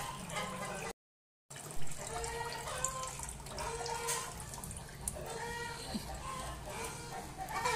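Water trickling from a small distillation still's outlet and running from a pipe into a plastic basin, with chickens clucking in the background. The sound cuts out completely for about half a second, about a second in.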